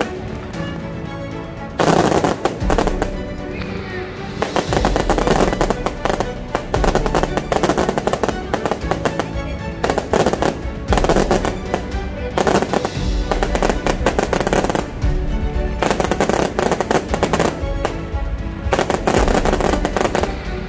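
Fireworks going off: repeated clusters of rapid bangs and crackling from bursting shells, with music playing alongside.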